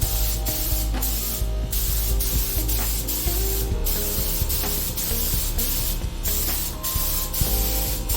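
Paint spray gun hissing as it sprays a refinishing coat, in long passes broken by three short pauses where the trigger is let go.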